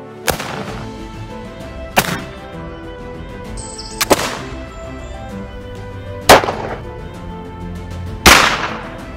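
Black-powder muzzleloading guns firing single shots, about five in all, spaced roughly two seconds apart, each with a ringing tail; the last two are the loudest. Background music plays underneath.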